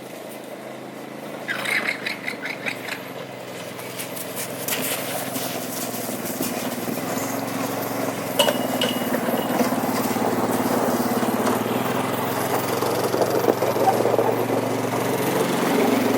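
Motor vehicle engine running steadily, growing louder, typical of the hay delivery vehicle arriving. A brief run of high, pulsing sound comes about two seconds in.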